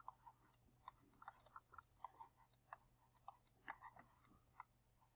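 Faint, irregular light clicks, about four a second, of a stylus tapping on a tablet as numbers are handwritten.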